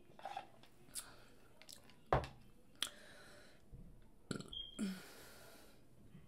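Close-miked mouth sounds of sipping soda through a straw and swallowing: a series of short wet clicks and gulps, the loudest about two seconds in, then a longer breathy sound about four and a half seconds in.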